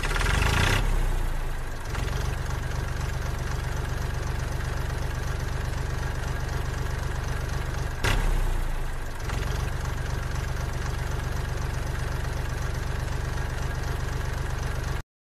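Steady engine running sound with a fast, even rhythm and a deep rumble, heard with a small toy pickup truck driving. It swells twice, at the start and about halfway through, and cuts off suddenly near the end.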